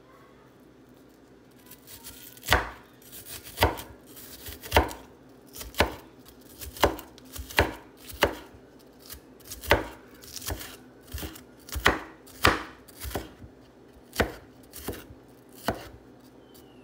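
Kitchen knife chopping onion on a wooden cutting board: sharp, unhurried strikes, about one or two a second, starting about two seconds in.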